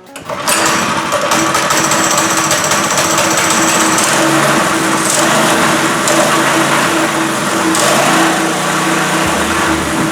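The Barstool go-kart's 6.5 hp small engine running, starting up sharply right at the beginning and holding steady at a loud level.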